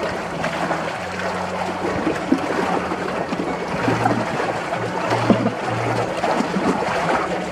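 Water splashing and lapping, an uneven crackling wash, with low music notes coming and going underneath.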